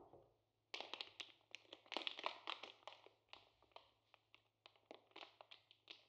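A can set down on a wooden tabletop with a single knock, then, about a second in, the crinkling and crackling of plastic pasta bags being picked up and handled. The crackling is busiest in the first couple of seconds and thins out toward the end.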